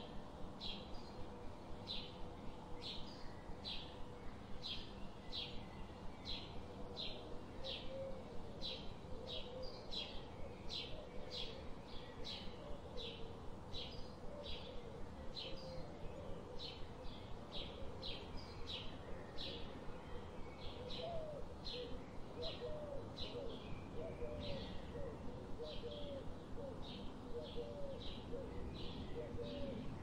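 Songbird repeating a short, high chirp about twice a second, steadily, over a low background hiss. From about a quarter of the way in, a much lower call joins in with short curling notes.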